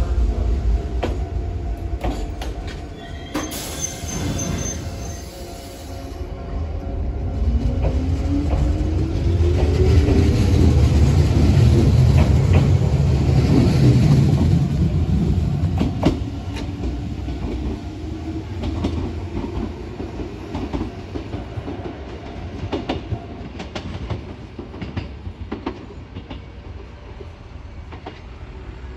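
Enshu Railway 1000-series electric train running through a station: its motor tone falls as it comes in, then rises as it picks up speed again. The wheels clatter loudly along the platform, and the sound fades gradually as the train goes away.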